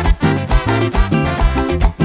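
Mexican regional band music: a full ensemble playing at a steady, danceable beat, with strong bass beats about twice a second.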